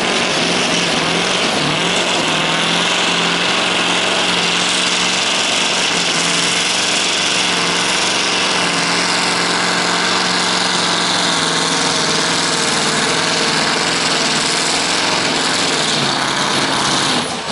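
Scania V8 diesel engine of a pulling truck running flat out under heavy load as it drags the weight sled, holding a steady pitch. It falls off near the end as the pull finishes.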